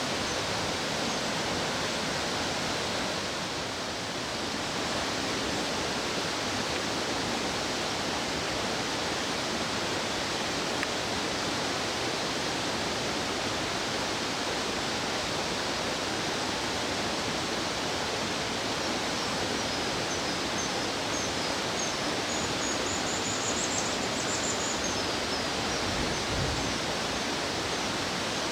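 Rushing stream water, a steady even wash of noise, with a few faint high chirps near the end.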